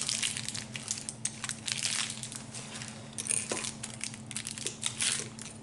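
Plastic film wrapped around a TV stand leg crinkling as it is handled, with scattered light clicks as a screw is fitted into the leg with a Phillips screwdriver. The rustling is irregular and tails off near the end.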